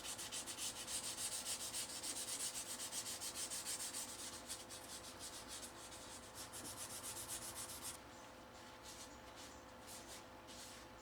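Wet sandpaper rubbed back and forth over a Bakelite utensil handle in quick, even strokes, about four a second, to smooth out bumps in the surface. After about eight seconds the strokes thin out to a few fainter scattered ones.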